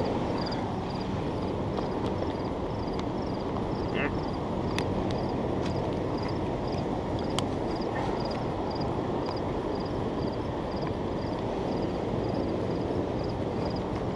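Steady outdoor background rumble, with a faint high ticking that repeats about two to three times a second and a few small clicks.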